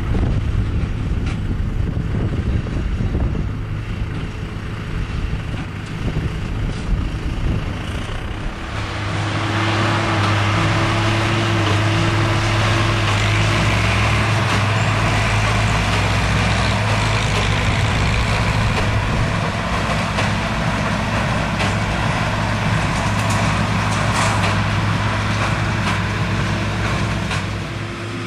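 Valtra tractor pulling a New Holland BB9060 big square baler, engine and baler running steadily. About nine seconds in, the sound changes to a louder, steady engine hum.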